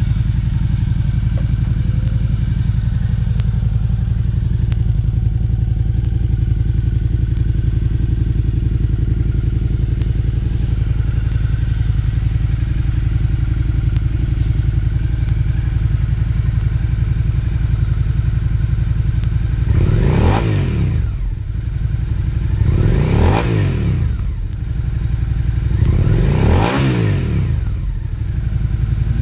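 Suzuki SV650X's 645 cc V-twin engine with a GPD slip-on exhaust idling steadily in neutral. After about twenty seconds it is revved three times, each blip rising and dropping back to idle.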